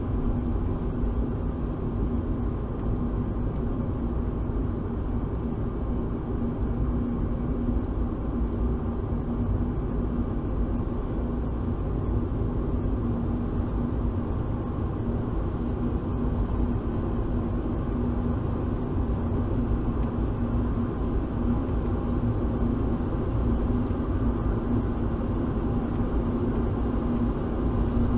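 Car driving slowly, heard from inside the cabin: a steady low rumble of engine and road with a constant hum running under it.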